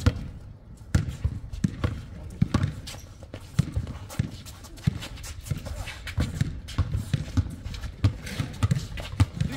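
Basketball bouncing on a hard court and players' running footsteps, heard as irregular thumps, several a second.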